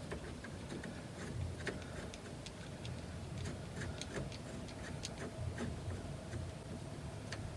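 Light, irregular clicks and ticks of a screw and screwdriver being worked at while fitting a turn signal switch into a steering column.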